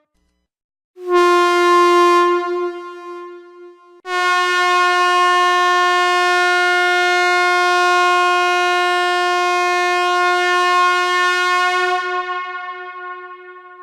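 Loud air horn sound effect: a short blast starts about a second in and trails off, then a long, steady blast of the same pitch begins about four seconds in and fades away near the end.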